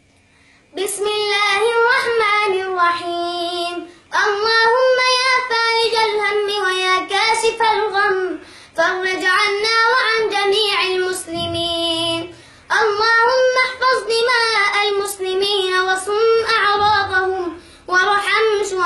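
A young boy chanting a dua (Islamic supplication) in a high, melodic voice, in five long held phrases with a brief breath between each.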